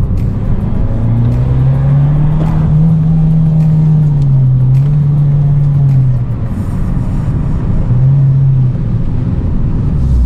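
Abarth 595 Pista's turbocharged 1.4-litre four-cylinder, through its Record Monza exhaust, heard from inside the cabin while driving: the engine note climbs under throttle about a second in, holds, then eases off and drops away for a couple of seconds before coming back briefly, over steady road noise.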